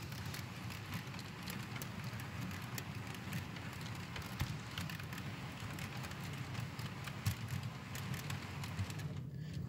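HO scale model freight train rolling along the track: a steady low rumble of the cars, with many quick, irregular clicks as the metal wheels pass over rail joints.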